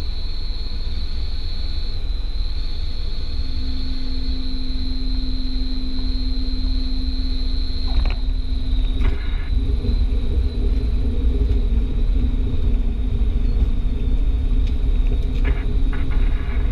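Light single-engine propeller airplane heard from inside the cockpit during landing: the engine and propeller run at low power with a steady rumble and a high whine. About eight seconds in there is a sharp knock as the wheels touch down, followed by the rumble of rolling along the runway.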